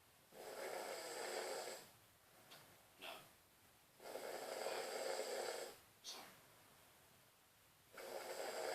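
A man snoring in his sleep: three long snores about four seconds apart, the last starting near the end, with a short breath sound between them.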